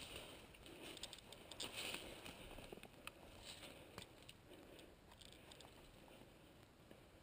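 Faint footsteps scuffing and rustling through dry pine-needle litter, with a few light snaps of twigs, dying away after about four seconds.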